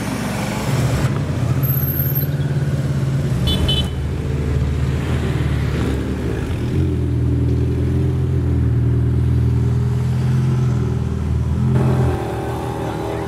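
Supercar engine running with a steady deep drone, with small shifts in level and pitch. Short high beeps sound about three and a half seconds in.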